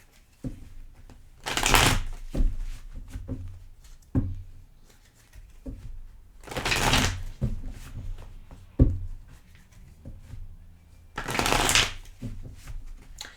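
Tarot cards being shuffled by hand in three bursts, with a few sharp taps between them.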